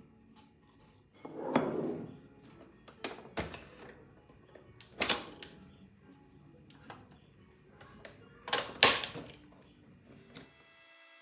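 Hard household objects being handled and set down: a scattered series of about seven clicks, knocks and clatters, the loudest two close together near the end.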